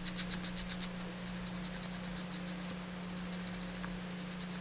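320-grit sandpaper rubbed quickly back and forth along the knife-cut edge of a piece of leather, about seven or eight strokes a second, smoothing the edge. A steady low hum runs underneath.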